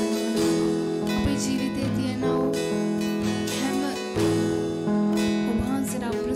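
Acoustic guitar strumming chords of a worship song, the chord changing every second or so.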